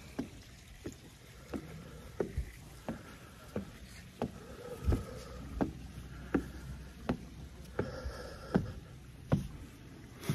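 Footsteps climbing wooden stairs and a plank walkway, an even knock about three times every two seconds, with the climber's heavy breathing between steps.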